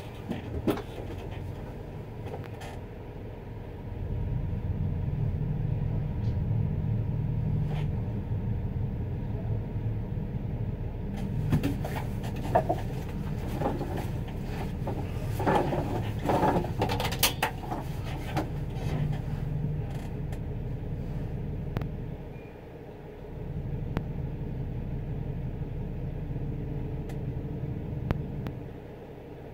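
Ladder truck's diesel engine running while the truck stands still, heard from the tiller cab: a steady low drone that grows louder about four seconds in and dips briefly twice later. Scattered short knocks and rattles in the middle.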